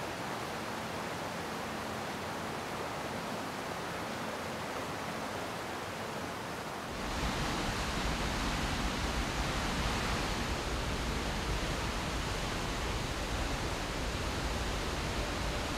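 A river rushing through a rocky gorge, a steady rush of water. About seven seconds in it cuts abruptly to a louder waterfall pouring into its plunge pool, with a low rumble beneath.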